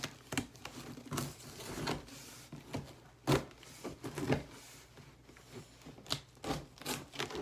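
A cardboard shipping box being handled and opened: a string of short scrapes and knocks, the loudest about three seconds in.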